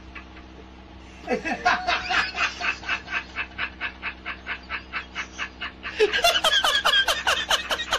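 A man laughing hard in rapid, even bursts, about four a second, starting about a second in and growing louder and higher-pitched near the end.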